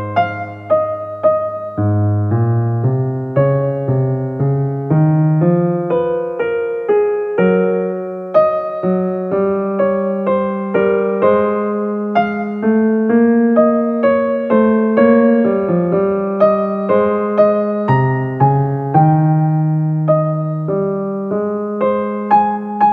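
Background piano music: a calm melody of struck notes, a few a second, over slower bass notes.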